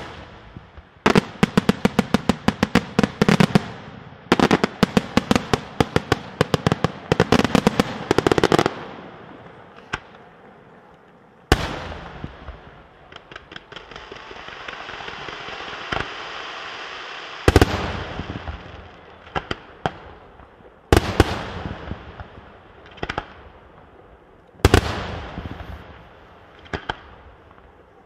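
Fireworks display: one sharp bang, then two long volleys of rapid-fire reports from multi-shot fireworks over the first nine seconds. After that a ground fountain hisses steadily for several seconds while single loud shell bursts go off every few seconds.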